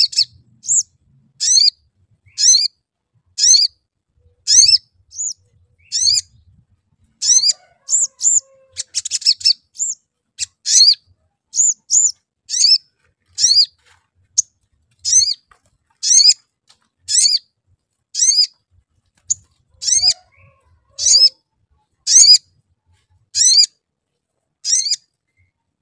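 Male olive-backed sunbird chirping: sharp, high "cuit" calls repeated one to two a second, with a short run of quick chattering notes about nine seconds in.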